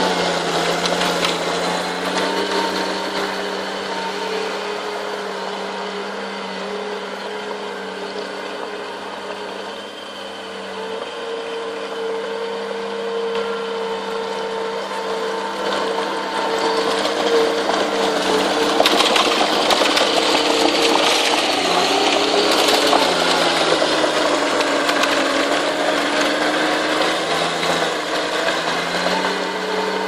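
Crawler bulldozer's diesel engine running steadily under load, its note stepping up about ten seconds in and growing louder through the second half as the machine works the soil pile.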